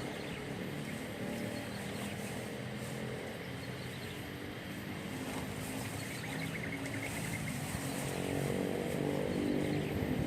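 A motor running steadily, its pitch drifting slightly up and down.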